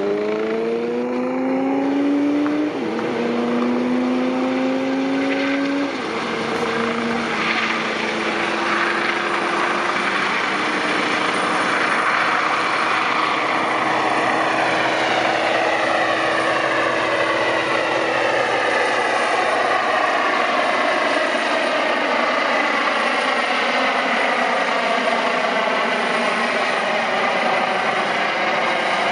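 Eurocopter EC135 air-ambulance helicopter lifting off and departing. The turbine whine rises in pitch over the first six seconds as power comes up for take-off, then rotor and turbine noise runs steadily as it climbs away and flies past.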